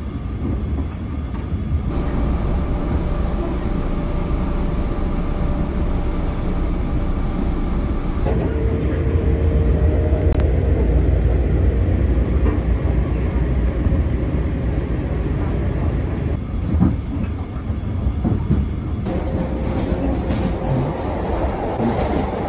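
Passenger train running, heard from inside the carriage: a steady low rumble with a faint steady whine over it. The sound shifts abruptly a few times.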